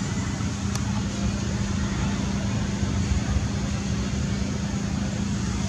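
Steady background rumble with a constant low hum, unchanging throughout.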